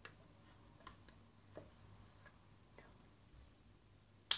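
Faint, irregular clicks of a metal spoon against a small plastic cup while eating from it, about six in all, with the loudest near the end.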